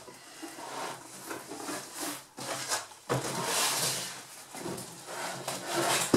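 Cardboard rustling and scraping as packing pieces are pulled out of a large shipping carton and tossed aside, in uneven swells, with the loudest stretch about halfway through.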